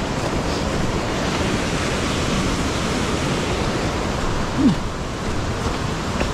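Steady, unbroken rush of a rain-swollen mountain stream running under a footbridge. About three-quarters of the way through there is one brief falling squeak.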